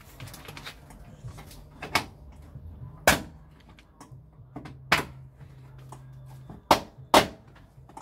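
Plastic retaining clips of a Talbot Express van's front door trim panel snapping loose as the panel is prised off: five sharp snaps, the loudest a pair close together near the end.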